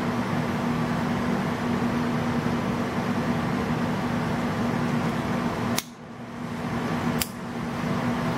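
Steady fan-like room hum with a low drone, broken by two sharp clicks about a second and a half apart as a small plastic dog-bone-shaped butane lighter is handled.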